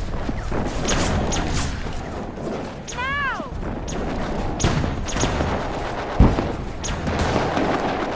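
Sci-fi laser blaster sound effects firing in a battle: a run of sharp shots, with one pitched 'pew' that rises and falls about three seconds in and a heavy boom a little after six seconds.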